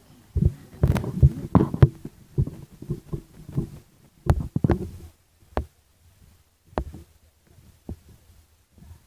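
Irregular low thumps and rumbles on a handheld phone's microphone, typical of handling and wind buffeting while the phone is moved. They come thick and fast for the first few seconds, then thin out to a few isolated knocks.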